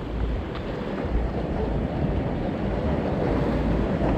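Wind noise on the microphone, with the steady wash of surf behind it.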